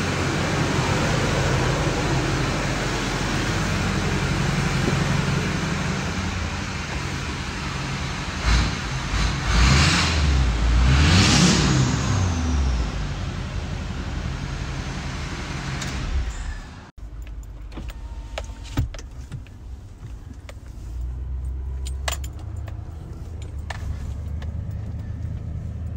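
2004.5 LLY Duramax turbodiesel V8 with a straight-piped 5-inch exhaust, idling loud and deep, then revved twice in quick succession, with a high whistle fading after the second rev. After a sudden cut, a quieter, lower engine rumble from inside a pickup cab while driving, with scattered sharp clicks and rattles.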